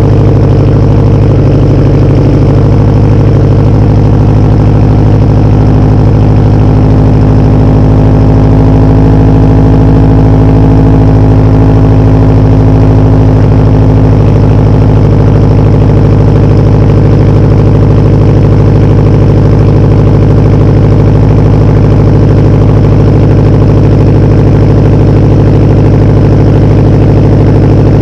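Subaru WRX's turbocharged flat-four idling steadily and loud just after a cold start, through a fully straight-piped 3-inch exhaust: catless downpipe, no resonator or mufflers, quad tips.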